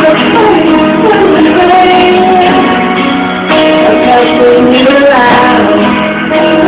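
Music: a woman singing held, gliding notes over guitar accompaniment.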